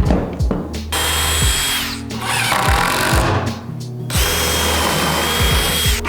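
A power tool whining in runs of a second or two, stopping and starting twice, over background music.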